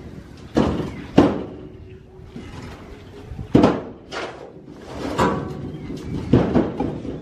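Irregular sharp knocks and bangs of building work, about six strikes spread over the few seconds, some with a short ringing tail.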